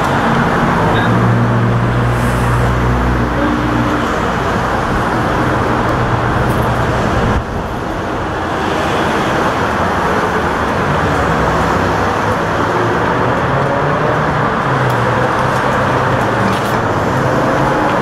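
Steady street traffic noise, with a motor vehicle's engine running close by.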